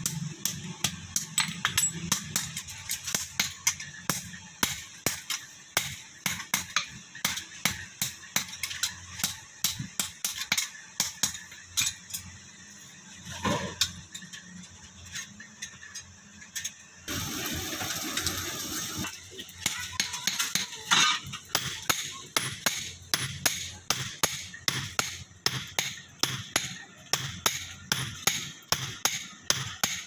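Hand hammer striking red-hot steel on an iron anvil while forging a garden trowel blade: sharp, regular blows, about two a second. They stop for a few seconds past the middle, where a steady hiss comes in, then start again.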